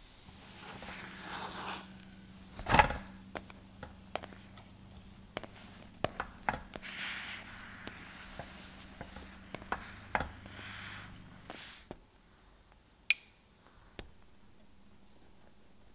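Pizza dough being flipped and pressed in a ceramic-coated frying pan with a wooden spatula: a heavy thud about three seconds in, then scrapes and light taps of the spatula against the pan over a steady low hum that stops about twelve seconds in. Near the end come a couple of sharp clicks as a spoon drops tomato sauce onto the crust.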